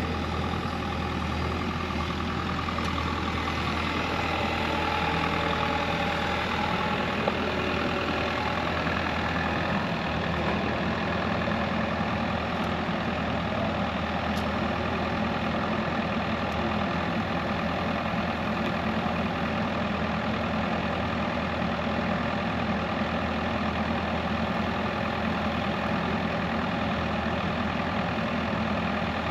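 Excavator engine running steadily at an even speed.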